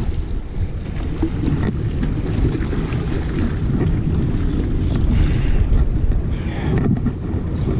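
Wind buffeting the microphone in a steady low rumble, with sea surf washing against the rocks below.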